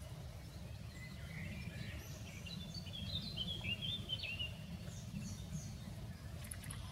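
A wild songbird singing, with a quick run of short chirping notes in the middle, over a steady low rumble. A few faint clicks near the end.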